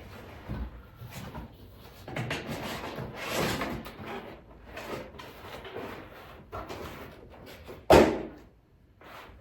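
Cardboard box being opened and handled: rustling and scraping of the flaps and packing, with one sharp thump about eight seconds in.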